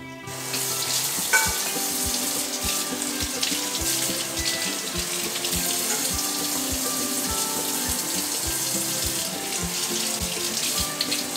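Kitchen faucet running steadily into a sink as fresh green beans are rinsed under the stream by hand.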